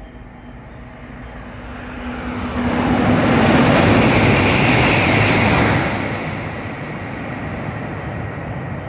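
East i (E926) Shinkansen test train passing through the station without stopping: a rush of air and wheels on rail that swells from about two seconds in, is loudest for about three seconds, then fades as the train recedes.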